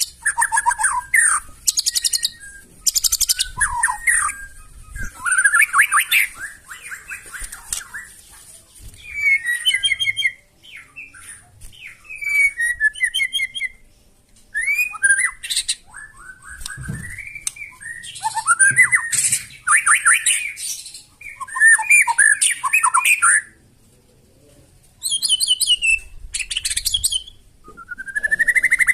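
White-rumped shama singing a long run of varied song phrases: whistled glides mixed with rapid, harsh chattering notes. The phrases come in quick bursts separated by short pauses.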